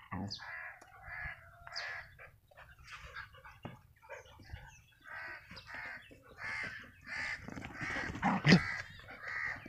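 Crows cawing over and over, short harsh calls following one another throughout. About eight and a half seconds in, a single sharp, loud sound stands out above them.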